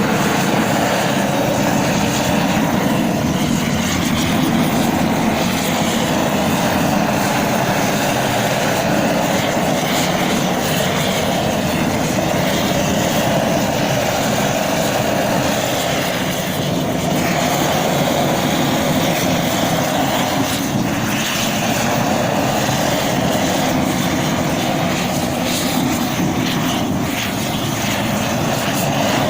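Propane roofing torch burning at full flame, a loud, steady rushing noise with no break, as used to melt torch-on bitumen roofing membrane.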